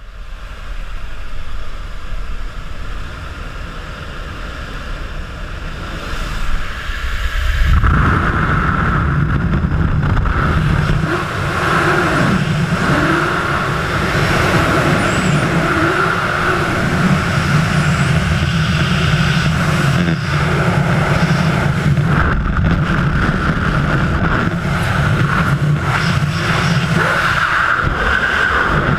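Wind and aircraft noise at the open door of a jump plane; about eight seconds in, the skydiver exits and freefall wind buffets the helmet camera's microphone, a loud, steady rush with a heavy low rumble.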